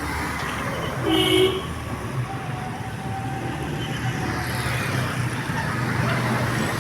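A bus's multi-tone 'telolet' horn gives one short chord-like blast about a second in, over the steady low rumble of a bus engine and road traffic.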